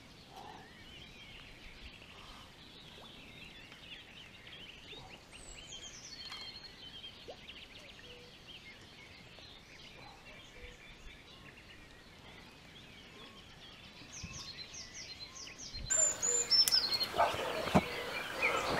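Faint chorus of many small songbirds chirping and whistling over a quiet background. About sixteen seconds in it gets louder, with a few knocks and rustles and clearer whistled bird calls.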